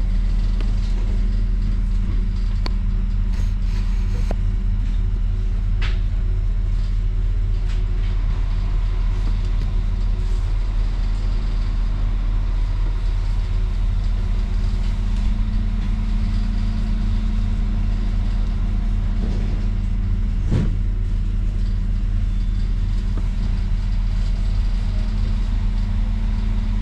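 Steady low hum and rumble inside a train carriage standing at the platform, with a single sharp knock about twenty seconds in.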